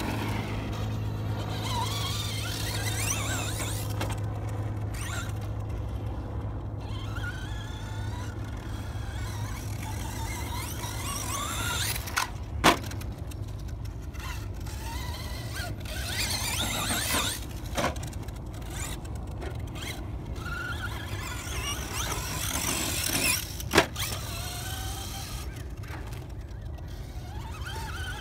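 Traxxas Slash 2WD brushless RC monster truck's electric motor whining, its pitch rising and falling as the throttle is worked. A few sharp knocks sound through it; the loudest comes about halfway through and another near the end.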